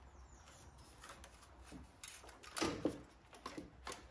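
Faint clicks, knocks and rustling from gloved hands working the tractor's wiring while taking a ground wire off. A short cluster of knocks comes a little past the middle, over a low background hum.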